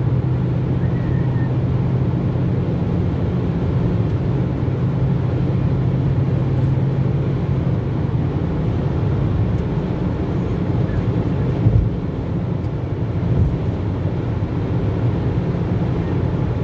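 Steady road and engine noise heard inside a car cruising at motorway speed: a constant low drone, with a couple of brief thumps about twelve and thirteen seconds in.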